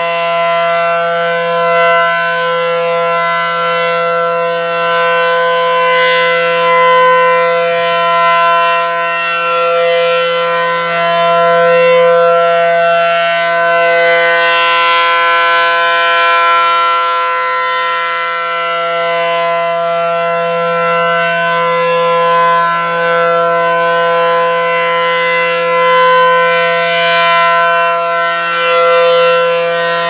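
ACA Allertor 125 tornado siren sounding a loud, steady-pitched tone while its horn rotates. The sound grows brighter and louder each time the horn sweeps toward the listener, about every ten seconds.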